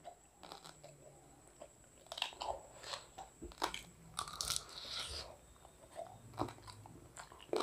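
Close-up eating sounds of a man biting and chewing pieces of rohu fish curry with rice by hand: scattered soft crunches and clicks.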